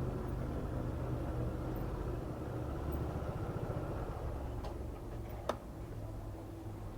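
Piaggio Medley S 125 scooter's single-cylinder four-stroke engine running steadily at low revs, slowly fading, with a sharp click about five and a half seconds in.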